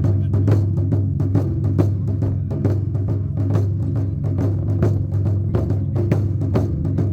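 Japanese festival drumming: taiko drums beaten with rapid, continuous strikes over a deep, steady drum boom.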